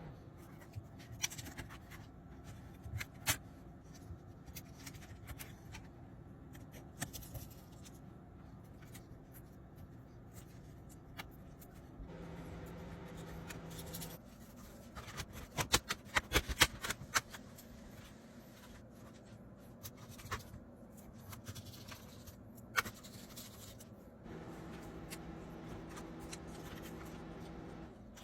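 Small clicks, taps and scrapes of plastic and metal parts being handled as a laptop's charging-port cable is swapped and clipped into place. A quick run of louder clicks comes about halfway through, and a faint steady hum sounds twice.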